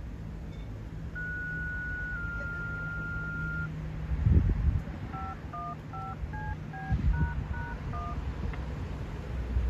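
Fire department pager alert tones for the weekly pager and siren test: a long two-tone page, one steady tone held about a second that steps slightly lower and holds about a second and a half more, then a quick run of about eight touch-tone (DTMF) beeps. A steady low hum runs underneath, with two low thumps in the middle.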